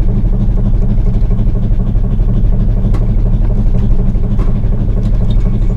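Engine of a motorised outrigger fishing boat (bangka) running steadily with an even, unbroken drone.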